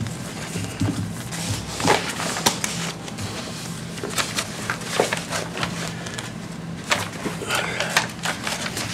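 Paper rustling and crackling in irregular short bursts as sealed bid envelopes are torn open and the sheets handled at a desk, over a steady low hum.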